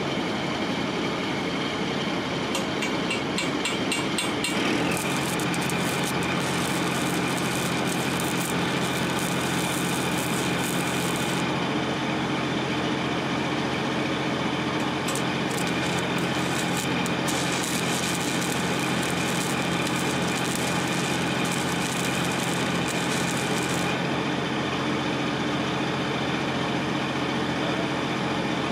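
Arc welding crackling and sizzling on the steel axle housing in two long runs: the first starts about five seconds in, and the second follows after a short pause. Under it a steady engine runs throughout, its note changing as the first weld starts.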